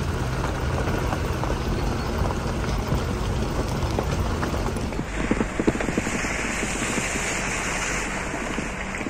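A vehicle engine running under a loud, rushing noise of water. From about five seconds in, the water noise turns brighter and more splashy, with crackling spatters.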